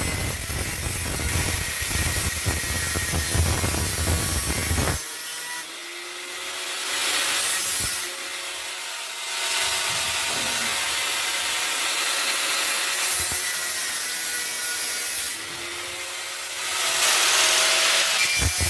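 Rough abrasive rubbing and scraping on the rusty steel of an exhaust back box as it is cleaned back to bare metal. The rubbing is continuous, with a deep rumble for the first few seconds, and it changes character abruptly several times.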